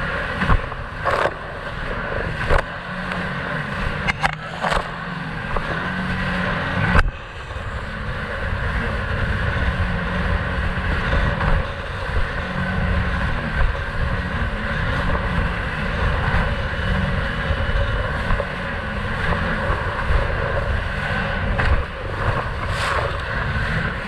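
Sea-Doo personal watercraft engine running steadily at speed, with a few sharp knocks as the hull slaps over waves, most of them in the first seven seconds.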